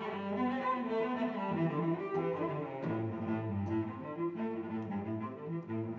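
Instrumental background music: a melody of held notes over a low bass line.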